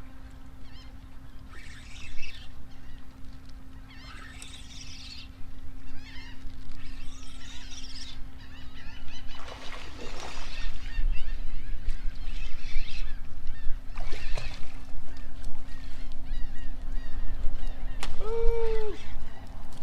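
Birds calling repeatedly in short honking cries, about one every two seconds, with a clear pitched honk near the end, over a steady low hum and a rumble that starts about halfway.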